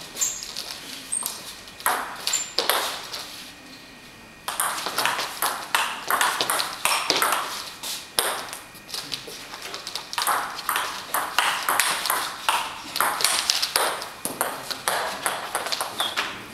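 Table tennis ball clicking rapidly off rackets and the table during rallies. There is a short lull about three seconds in, and play resumes at a quick pace about four and a half seconds in.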